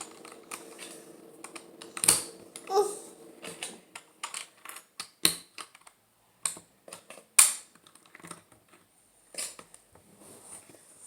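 Plastic Lego pieces clicking and clattering as they are handled and pressed together, in irregular light clicks with a few louder snaps.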